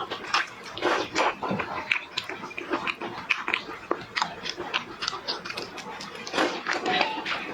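A person eating seafood close to the microphone: quick, irregular wet smacks, sucking and chewing, several to a second.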